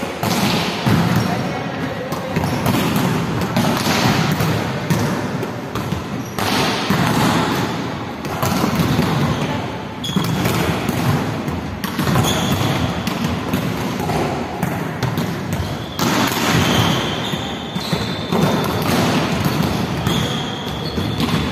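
Volleyballs being struck and bouncing on the court, many sharp hits one after another in a large echoing sports hall.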